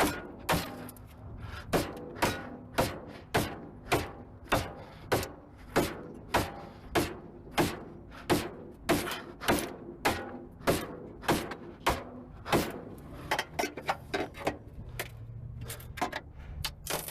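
Steady, repeated hammer blows on a stubborn car part being knocked loose, about two strikes a second, each with a short ring. Near the end the blows come quicker and more uneven.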